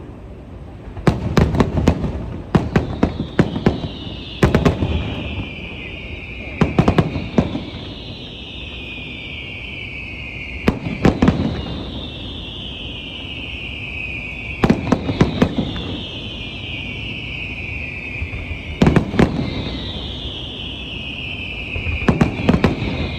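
Aerial fireworks going off: clusters of sharp bangs about every four seconds, each followed by a high sound sliding down in pitch for a few seconds.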